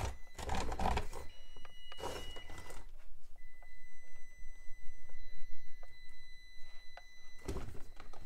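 Traxxas TRX-4M micro crawler with a PN Racing high-torque 180 brushed motor crawling over rock: a steady high electric whine from the motor and speed controller, with occasional light clicks and scrapes from the tires and chassis on the rock.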